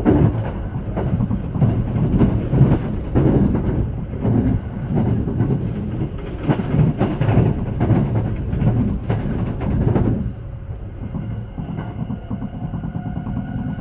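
Haruka airport express train running, its wheels clattering irregularly over rail joints and points for about ten seconds over a low rumble. Then the clatter drops away to a quieter, smoother run with a thin steady whine.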